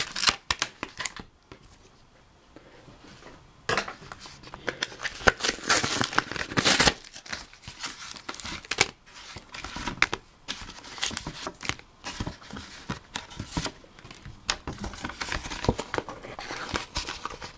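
Scissors snipping into a Pokémon card blister pack, then its stiff clear plastic and cardboard backing crackling and crinkling as they are bent and pulled apart, with a short lull after the first second or so.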